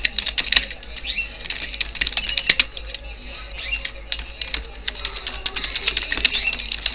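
Typing on a computer keyboard: a quick, uneven run of keystroke clicks as a sentence is typed.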